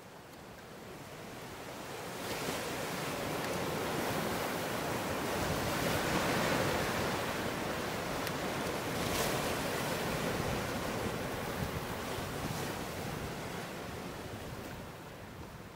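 Sea surf washing in on a shore: a steady rushing that swells up over the first few seconds, peaks midway and slowly fades toward the end.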